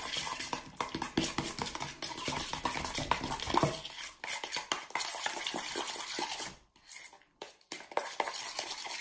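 A utensil stirring thick yogurt tzatziki in a stainless steel bowl: quick, irregular scraping and clinking against the metal, breaking off briefly about seven seconds in.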